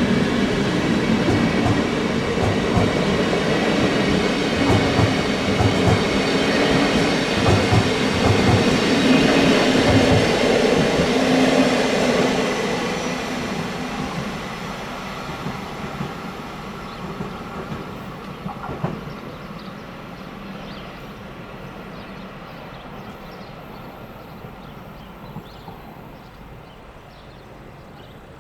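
A train rolling past, its wheels clacking rhythmically over rail joints, then the sound fading steadily as it moves away.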